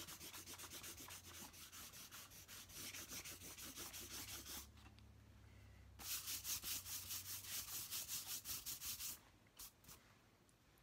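A large white eraser rubbed briskly back and forth over drawing paper to remove pencil lines, several strokes a second. It pauses for over a second about halfway through, starts again, and stops near the end.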